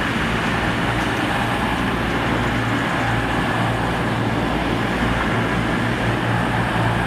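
CrossCountry Voyager diesel multiple unit moving past, its underfloor diesel engines running with a steady low hum.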